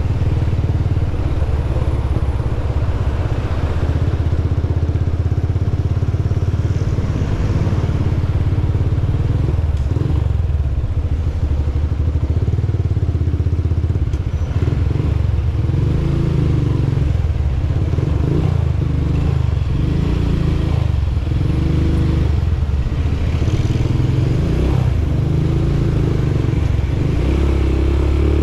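Motorcycle engine running steadily while riding, with road and wind noise. The engine note rises and falls with the throttle.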